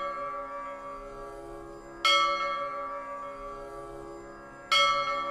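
A bell struck twice, about two and a half seconds apart, each strike sharp and then ringing on and slowly fading, over the dying ring of an earlier strike.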